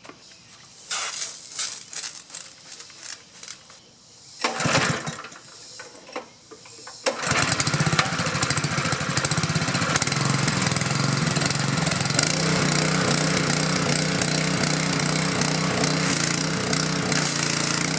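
Honda GX single-cylinder four-stroke engine on a pressure washer: a few seconds of intermittent clatter and a recoil-starter pull, then the engine catches about seven seconds in and runs steadily, with the hiss of the pressure spray over it.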